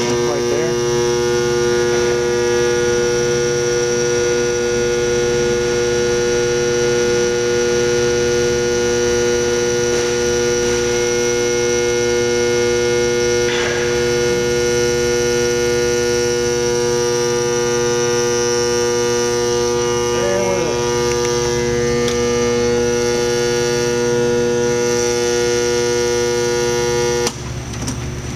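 Induction bearing heater humming loudly and steadily with an electrical mains hum while it heats a bearing on its yoke. The hum cuts off suddenly near the end as the heater switches off.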